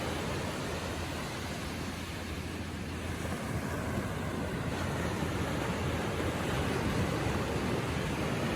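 Ocean waves lapping gently on the shore: a steady wash of surf that eases slightly and swells again a few seconds in.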